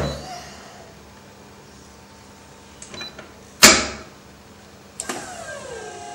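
Freesub ST420 heat press working after its emergency stop button is pressed: a sharp clunk at the start, then a loud sudden release about three and a half seconds in that dies away quickly. About five seconds in there is a click, followed by a humming tone from the machine that falls in pitch and then holds steady.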